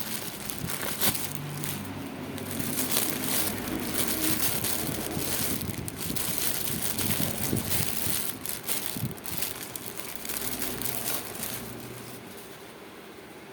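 Parcel packaging crinkling and rustling as it is handled and opened, in irregular crackly bursts that ease off near the end.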